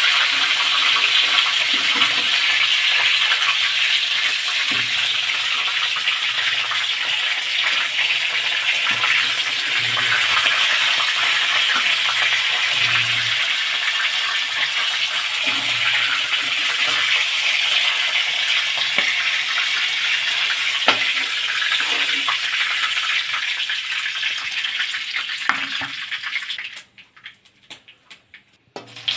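Chicken pieces sizzling steadily as they fry in oil in an iron kadai, with scattered clicks of a steel spatula against the pan. Near the end the sizzling cuts off suddenly, leaving near silence for about two seconds.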